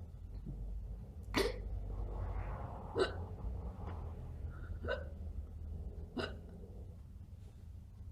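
A person hiccuping four times, one short, sharp hiccup every one and a half to two seconds. The uploader thinks the hiccups are probably faked.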